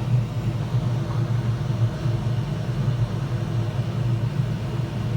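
A steady low mechanical hum that holds an even level throughout, with no distinct knocks or clicks.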